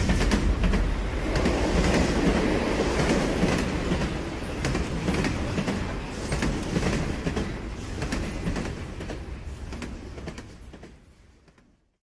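Steady rumbling and clattering with many irregular clicks. It fades away over the last few seconds and stops about a second before the end.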